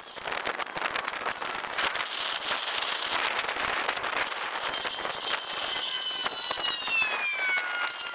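Outdoor hiss with scattered small clicks and rustles from a caulking gun being handled as sealant is run along a wooden roof. From about five seconds in, a faint whine slowly falls in pitch.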